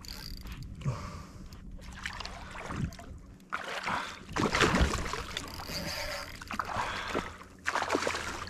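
Hooked snook thrashing and splashing at the water's surface beside a kayak, in irregular bursts, loudest about four seconds in and again near the end.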